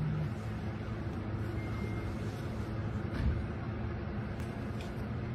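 Distant city traffic: a steady low hum and rushing noise, with a brief low thump about three seconds in.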